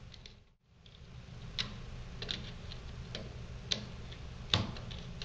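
Small screwdriver and wire ends being worked into a plastic screw-terminal strip: a handful of light, irregular clicks and ticks, the loudest near the end, over a low steady background. The sound briefly drops out about half a second in.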